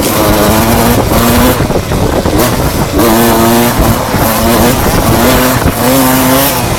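Enduro motorcycle engine, loud and revving up and dropping back over and over as the throttle is worked, its pitch climbing and falling every second or two.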